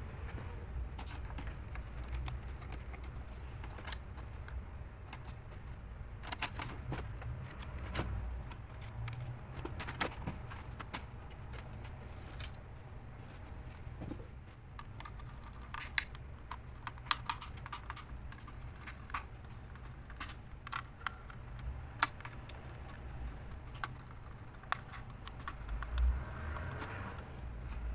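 Irregular small clicks and taps of plastic and metal laptop parts and small tools being handled while the laptop is taken apart, over a steady low hum.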